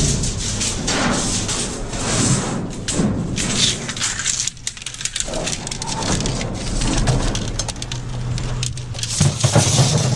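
Long metal bars being pulled out of a dumpster: repeated clattering and scraping of metal against metal and the dumpster, with rustling of cardboard and trash, and many sharp knocks throughout.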